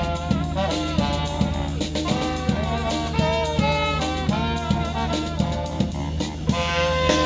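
A live band plays a tune, with brass horns (trumpet and trombone) on the melody over a drum kit keeping a steady beat.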